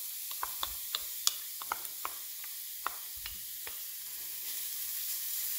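Chopped red onion sizzling in a hot, dry non-stick frying pan, with a scatter of sharp ticks and crackles through the first few seconds, then stirred with a wooden spatula.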